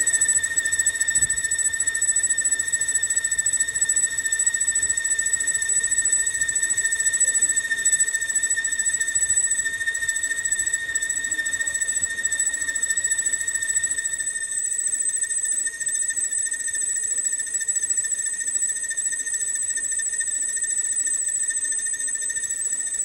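Lathe boring tool cutting inside a spinning metal rotor hub, giving a steady high-pitched squeal at one pitch over the low run of the lathe.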